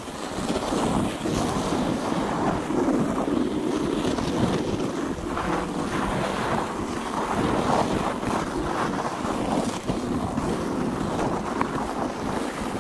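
Wind buffeting the microphone over the steady rushing scrape of a sledge sliding fast down a packed, icy snow run.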